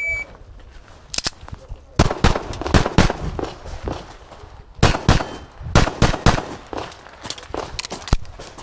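A shot timer's start beep ending at the very start, then a pistol fired in quick strings of sharp shots, with a pause of about a second and a half in the middle as the shooter moves between positions.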